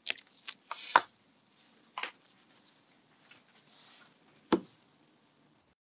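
Stylus on a tablet's glass screen: a few sharp taps, the loudest about a second in and again about four and a half seconds in, with short soft scratchy strokes between the first taps.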